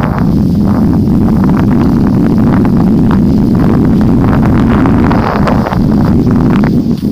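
Wind buffeting the microphone of a body-worn action camera while skiing downhill, a loud steady rumble, with the irregular hiss and scrape of skis sliding on packed snow.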